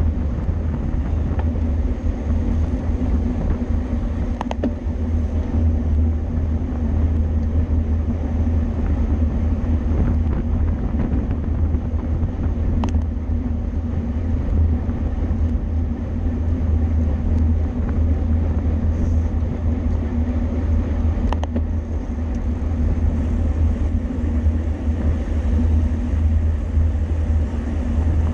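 Steady low rumble of wind and road noise from a road bicycle in motion, with a few sharp clicks about 5, 13 and 21 seconds in.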